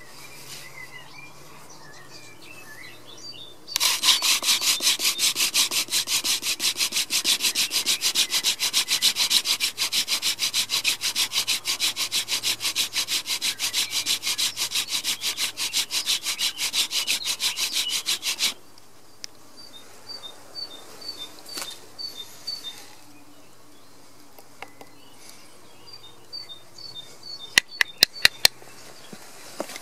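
Hand-drill friction fire: a wooden spindle spun back and forth between the palms, grinding into a wooden fireboard with a fast, even rubbing rhythm that starts a few seconds in and stops after about fifteen seconds. Near the end come four quick sharp taps on the fireboard. A bird chirps repeatedly in between.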